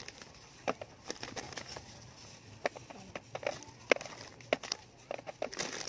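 Plastic candy wrappers and a plastic bag crinkling and clicking in irregular short bursts as wrapped candies are handled and counted one by one.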